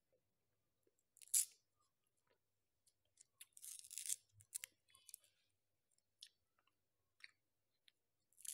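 Close-up crackling and crinkling as the paper sleeve is peeled off a chocolate-coated ice cream cone, in short separate bursts, then a crisp crunch near the end as the cone is bitten.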